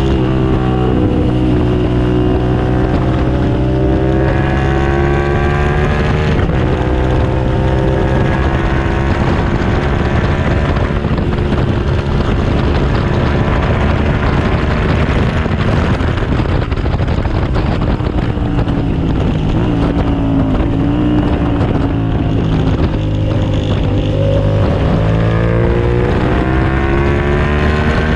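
2007 Suzuki SV650S's 90-degree V-twin engine running hard, its pitch rising and falling again and again as the bike accelerates, shifts and slows. Wind buffets the microphone throughout.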